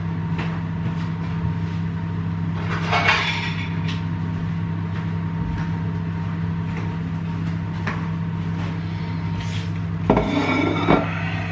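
Microwave oven running with a steady hum. Plates clatter briefly about three seconds in and again near the end.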